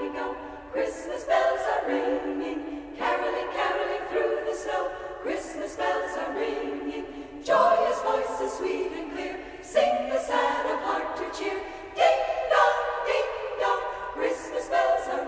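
A choir singing slow held chords, the chord changing about every two seconds.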